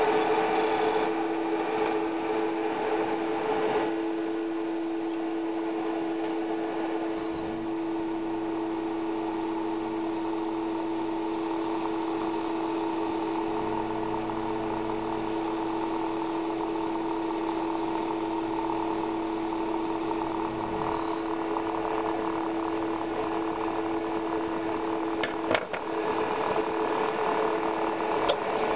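Home-built audio-frequency water heater with a multilayer coil, running as a steady electrical hum of several held tones. A lower hum joins about seven seconds in and stops about twenty-one seconds in. The tones break briefly with a couple of clicks near the end.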